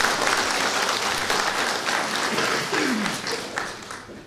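Theatre audience applauding, the clapping dying away near the end.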